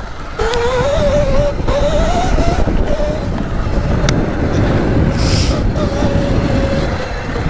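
Electric dirt bike's motor whining while being ridden off-road, its pitch rising over the first couple of seconds as it speeds up, then holding fairly steady over a low rumble. A brief click about four seconds in.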